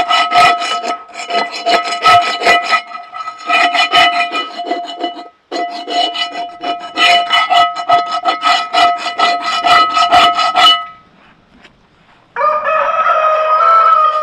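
Wire brush scrubbing leftover carbon off the bottom of a Lodge #8 cast iron skillet in rapid back-and-forth strokes, in bursts with short pauses, with a steady tone running under the strokes. The scrubbing stops about 11 seconds in, and near the end a rooster crows.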